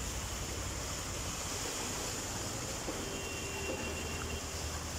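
Motor vehicle wading through street floodwater: a steady rush and swish of water over a low engine rumble.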